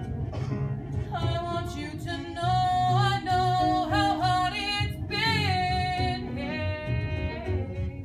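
A woman singing a solo line in a stage musical, over an instrumental accompaniment. Her voice comes in about a second in with long held notes, pauses briefly, then sings another phrase.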